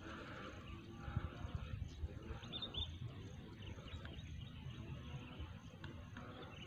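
Faint outdoor ambience with a few short, faint bird chirps about two and a half seconds in, and soft low knocks scattered through the first few seconds.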